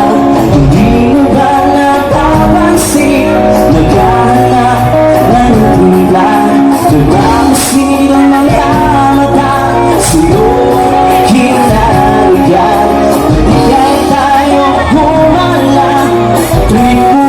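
Loud pop music with a singing voice over a steady bass, and a few sharp cymbal-like strokes.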